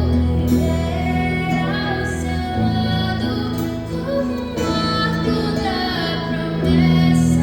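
A female vocalist singing a slow ballad with a live band, over steady sustained bass notes and chords.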